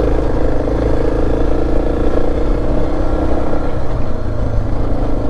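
Suzuki DR650's single-cylinder four-stroke engine running steadily while the motorcycle is ridden off-road.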